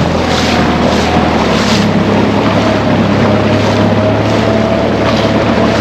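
Small motorboat engine running steadily under way, its pitch stepping up about one and a half seconds in, over a constant rush of wind and water.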